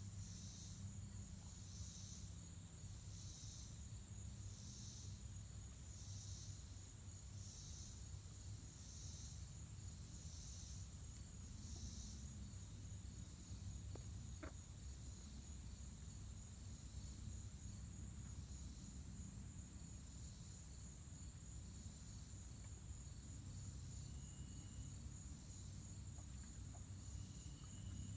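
Faint evening insect chorus: a steady high-pitched buzz with a pulsing chirp repeating about once a second, the chirps fading out about halfway through, over a low steady rumble. One short click about halfway.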